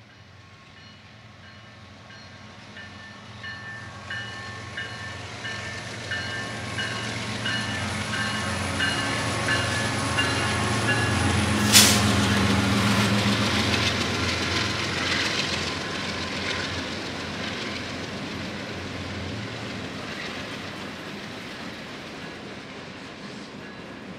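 Union Pacific diesel freight train passing: the locomotives' engine rumble builds and peaks about halfway through, with a bell ringing over and over in the first half and a sharp bang as the engines go by. Then the hopper cars roll past with a rattle of wheels on rail, slowly fading.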